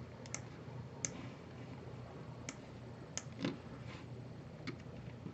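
A handful of faint, scattered clicks from a computer keyboard and mouse, a second or so apart, over a quiet room.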